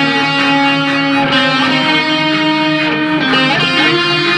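Electric guitar playing a melody in long held notes, with a bend about three and a half seconds in.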